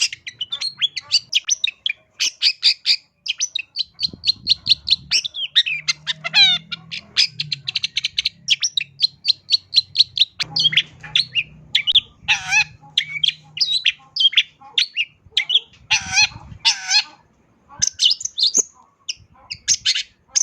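Long-tailed shrike (cendet) singing a rapid, unbroken stream of chattering, high notes packed with mimicked calls of other birds. A quick falling trill comes about six seconds in, and a few louder, harsher notes come in the second half.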